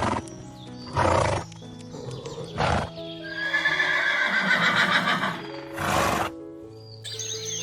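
A horse neighing: several short calls, then a long wavering whinny in the middle, over background music.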